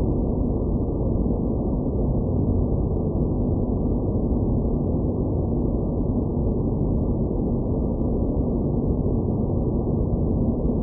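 Space ambience sound effect: a steady, muffled low rumble of noise with a faint hum in it and no highs, unchanging throughout.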